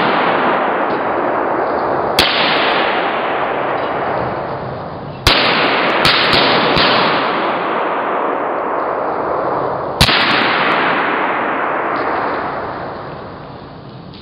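Gunpowder charges going off in a gasoline fire: a string of sharp bangs, each followed by a loud rushing hiss of burning that lasts several seconds and fades. The hiss dies down near the end.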